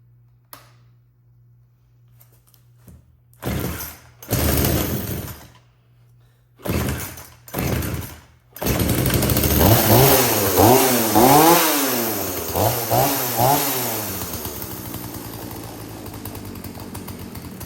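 Husqvarna two-stroke chainsaw being pull-started: a few pulls of the starter cord, then the engine catches about nine seconds in and revs up and down with the throttle several times. It then sinks away and dies near the end: the saw starts but won't idle, which the mechanic puts partly down to a clogged air filter.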